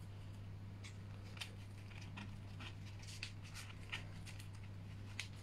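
Faint paper handling: small rustles and clicks as a paper leaf is glued with a glue stick and pressed onto a paper craft, over a steady low hum.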